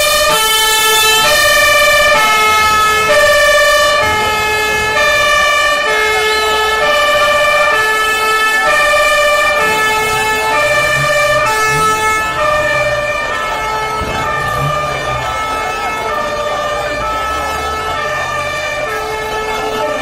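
Siren sounding a repeating pattern of held notes that step between a few pitches, roughly one and a half notes a second, over the noise of a stadium crowd.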